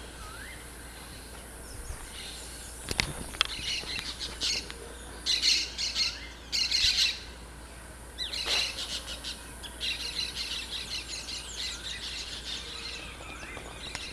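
Birds calling: short rising whistles repeat at first, then loud bursts of harsh, chattering calls come and go from about five seconds in.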